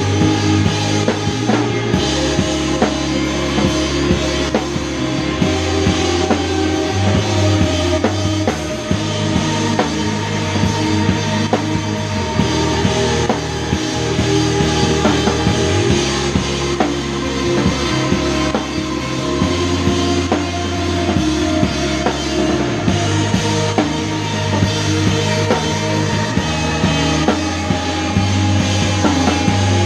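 Live shoegaze rock band playing loud and dense: a full drum kit with kick, snare and cymbals under thick guitar and held bass notes that change every couple of seconds.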